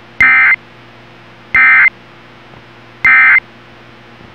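Emergency Alert System digital data bursts: three identical short, buzzy bursts of rapidly shifting tones about 1.4 seconds apart, the end-of-message code sent after a test alert, over a faint steady hum on the broadcast.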